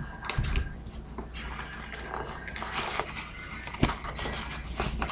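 Packaging being opened by hand: rustling and crinkling with scattered small clicks as a shipping box is unpacked, and one sharper click a little under four seconds in.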